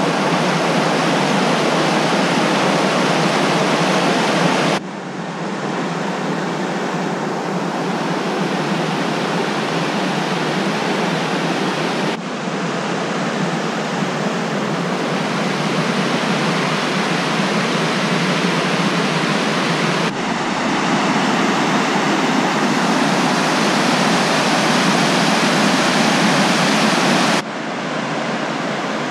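White water rushing steadily over low rock ledges of a forest creek, small cascades pouring into pools. The loudness and tone shift suddenly four times.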